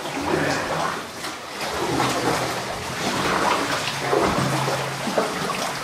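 Water rushing and splashing around a kayak as paddles dip into the flowing irrigation-ditch water, inside a narrow rock tunnel.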